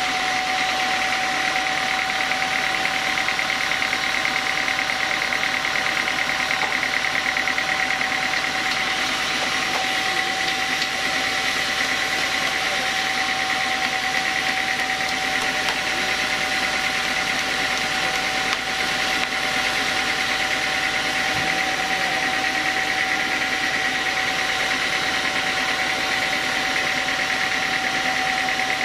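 Custom-built band sawmill running steadily while its blade saws through a large block of timber: a constant machine drone with a steady high whine.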